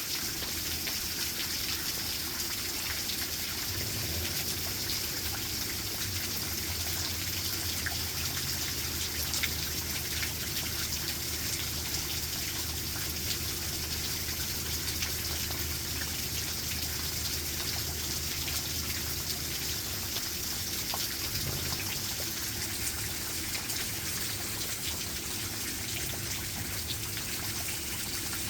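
Steady rain, an even hiss full of small raindrop ticks. A low rumble sits beneath it from about four seconds in and fades out about twenty seconds in.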